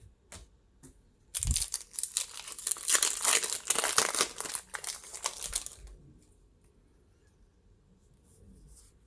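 Foil wrapper of a Pokémon booster pack being torn open and crinkled: a dense crackling that starts just over a second in and lasts about four and a half seconds.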